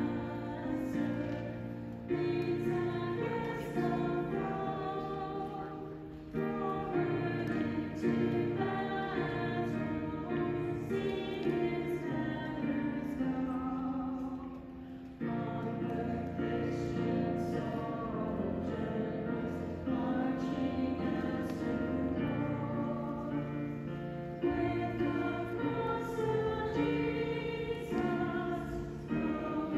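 A choir singing to instrumental accompaniment, in long held notes over a moving bass line, with short breaks about six and fifteen seconds in.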